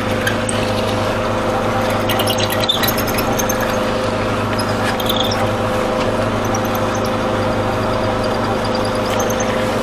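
Electric mortise machine running steadily, its motor humming as it cuts a mortise through a wooden door rail.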